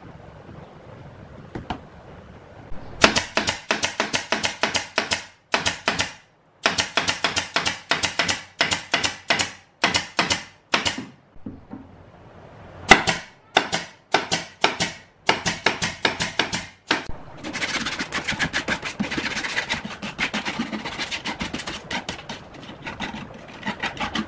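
Pneumatic nail gun firing repeatedly into plywood panels: sharp shots about four a second, in runs broken by short pauses.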